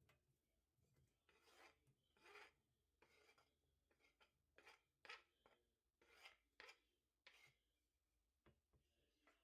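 Faint rasping scrapes of food preparation, about ten irregular strokes.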